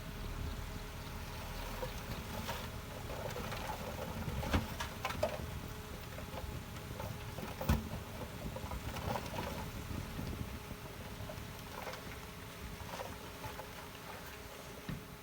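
Diesel engine of heavy earthmoving machinery running steadily, with a few sharp knocks, two of them loudest, about four and a half and seven and a half seconds in.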